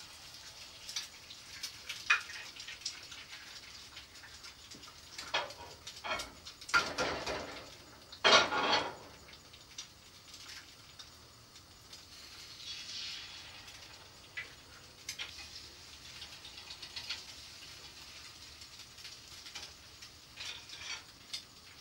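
Pancakes, sausage and eggs frying with a steady faint sizzle on a steel griddle, broken by scattered clicks and clatters as eggs are cracked into metal egg rings and utensils are handled, loudest about eight seconds in.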